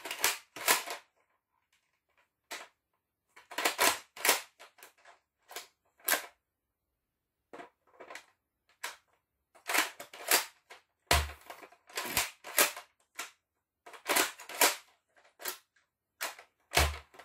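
Zuru X-Shot Regenerator toy foam-dart blaster being worked by hand, with repeated sharp plastic clacks and snaps coming in small clusters. Two of them carry a dull thump, about eleven seconds in and again near the end.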